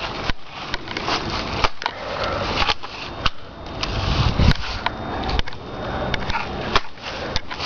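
Rustling and scraping movement noise, with sharp clicks and snaps scattered irregularly through it.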